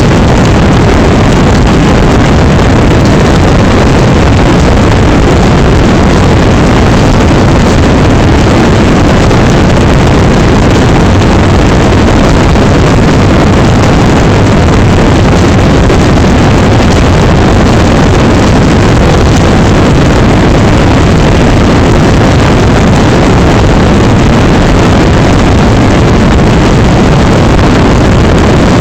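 Torrential rain pouring down: a loud, dense, steady rushing noise with no let-up.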